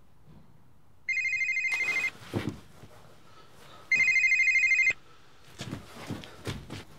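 Telephone ringing twice with a fast electronic warble, each ring about a second long. Short movement noises fall between and after the rings.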